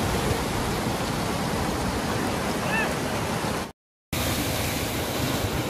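Steady rushing noise, cut off abruptly for a split second a little under four seconds in, then resuming.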